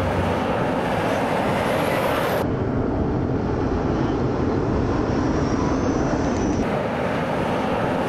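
Steady road noise of expressway traffic: tyre and engine noise from cars and a light truck passing below.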